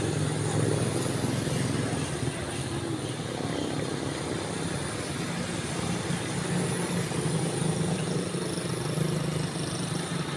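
Roadside traffic: a steady low engine hum, with motorcycles and a motorcycle tricycle passing close by.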